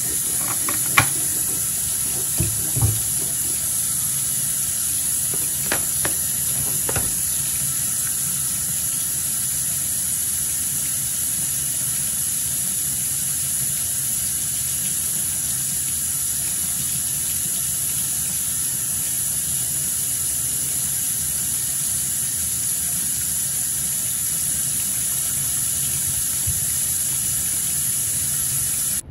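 Bathroom sink tap running steadily, with a few small knocks in the first seven seconds.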